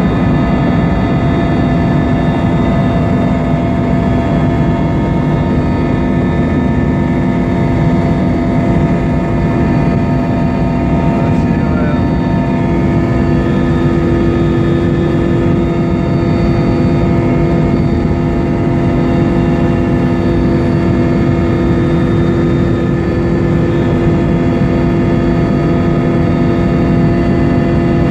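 Aircraft engines droning steadily, a constant hum with several steady tones over a low rumble that does not change.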